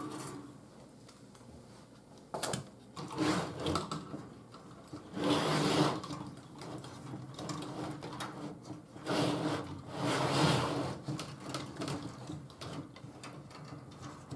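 A wooden shelf frame backed with chicken wire being handled and shifted on a work surface. The wire mesh rattles and scrapes in two longer stretches, with sharp knocks and small clicks between them.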